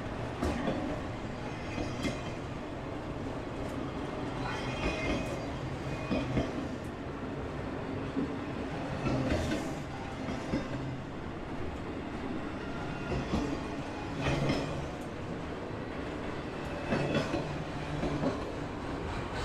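Freight train of autorack cars rolling past, wheels clacking over rail joints with a steady rumble and scattered brief sharp knocks.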